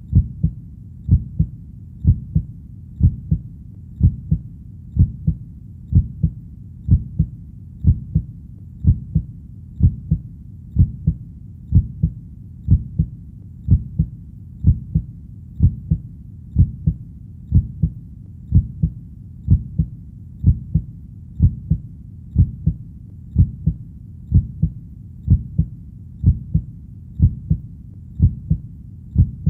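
Steady heartbeat, a slow, even lub-dub pulse of paired low thuds about once a second.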